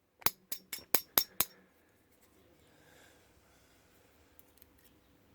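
Quick run of light metallic clicks, about four a second, six in all, ending about a second and a half in, from small metal parts of a vintage Yale padlock being handled during disassembly.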